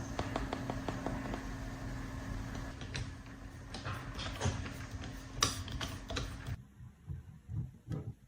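A scattering of light clicks and taps, as of small parts being handled on a workbench, over a steady hum that cuts off suddenly about six and a half seconds in.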